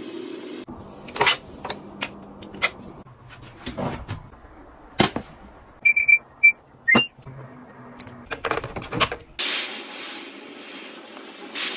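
Scattered clicks and taps, then a few short electronic beeps about six seconds in as a washing machine's touch-control panel is pressed. Near the end comes a steady hiss of steam from a handheld garment steamer.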